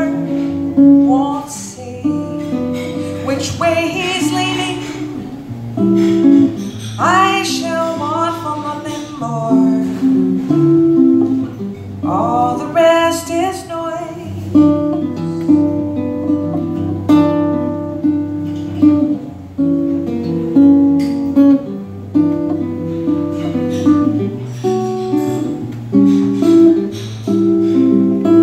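A woman singing to her own acoustic guitar. Her voice drops out about halfway through and the guitar goes on alone with plucked notes.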